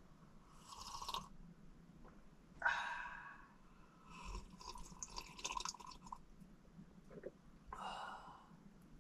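Quiet sips and slurps from metal camping mugs, heard as a few short noisy bursts. The sharpest comes about two and a half seconds in, and there is a longer spell from about four to six seconds.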